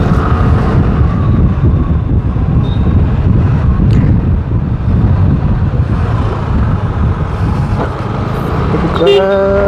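Wind rushing over a helmet-mounted camera's microphone together with the running engine and road noise of a TVS Ntorq 125 scooter being ridden. About nine seconds in, after a click, a steady pitched hum comes in and rises slowly.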